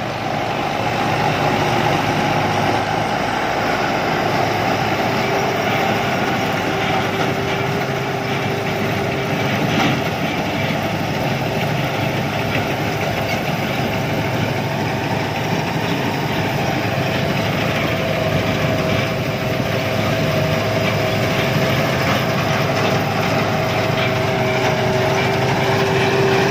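Rice combine harvester running steadily while harvesting: a constant engine drone with a steady whine over it.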